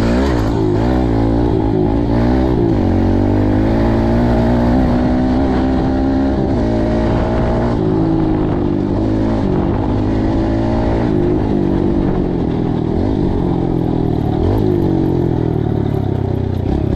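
Kawasaki 110 dirt bike's small single-cylinder four-stroke engine under way, its pitch climbing and dropping back several times as the rider accelerates and shifts gears.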